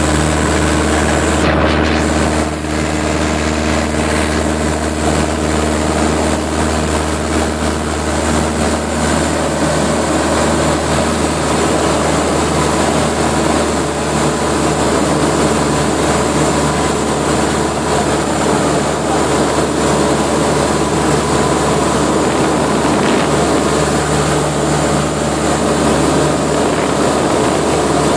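Aermacchi MB-308 light aircraft's piston engine and propeller running at takeoff power through the takeoff roll and climb-out, heard from inside the cockpit: a loud, steady drone.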